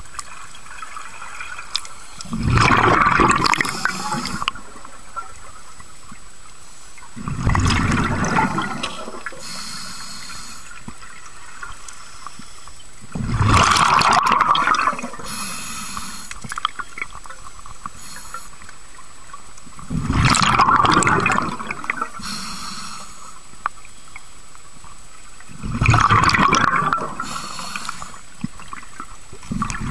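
A scuba diver breathing through a regulator underwater: five loud rushes of exhaled bubbles, about one every six seconds, each lasting a second or two, with a fainter hiss of the regulator on the inhalations between them.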